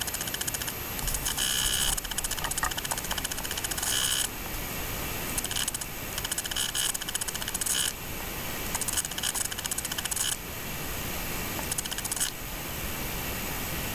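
A fast, steady mechanical clatter with hiss. Its high rattle comes and goes in stretches of a few seconds.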